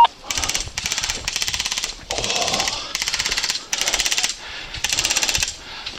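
Airsoft electric rifle firing on full auto in about seven short bursts of rapid clicking shots, each burst about half a second long.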